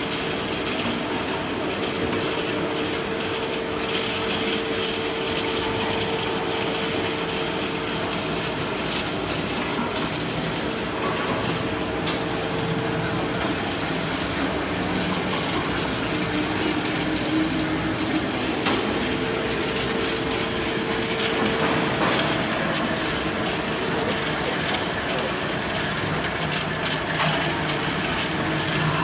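Mini continuous olive oil extraction machine running steadily, giving an even mechanical noise with a faint hum.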